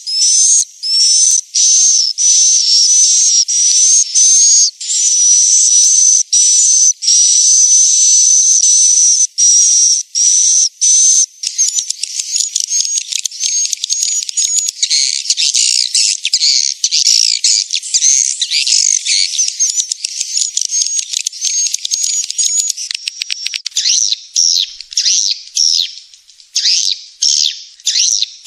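Swiftlets calling in long chirring trills, one after another with brief breaks. About eleven seconds in this gives way to a denser jumble of chirps, and near the end to short separate chirps. It is a swiftlet-house lure recording of roosting ('inap') calls.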